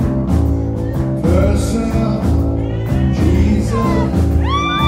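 Live rock band playing: electric guitars, bass, drums and keyboards under an amplified lead vocal singing, loud and steady.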